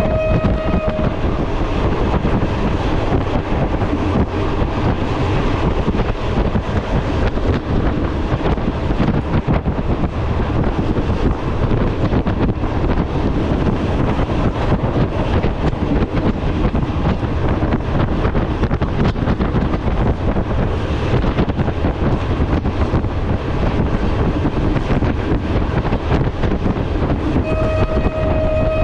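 Passenger train running with the carriage window open: a steady rumble of wheels and rushing air. The train's horn sounds briefly, one steady note, right at the start and again near the end.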